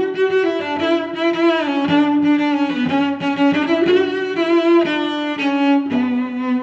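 Background instrumental music: a slow melody of sustained, wavering bowed-string notes.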